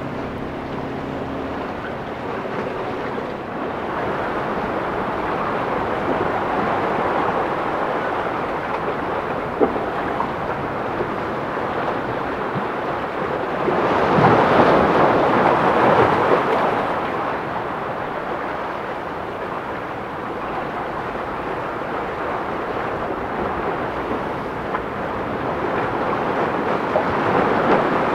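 Wind buffeting the microphone over breaking waves: a steady rushing noise that swells louder for a few seconds about halfway through.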